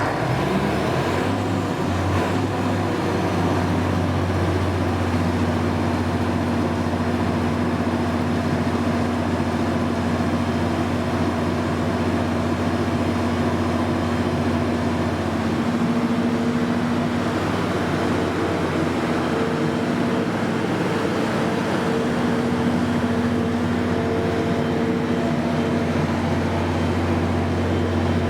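12-cylinder Daewoo diesel engine of a 600 kW Generac generator set running steadily at its governed speed just after start-up. Its deep, even drone settles within the first couple of seconds.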